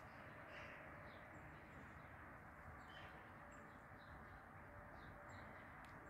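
Near silence: a faint outdoor hush with scattered faint, short, high bird chirps now and then.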